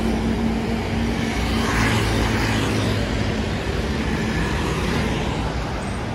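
Road traffic on a busy street: trucks, motorbikes and cars passing with a steady engine hum and tyre noise. One vehicle passes louder about two seconds in.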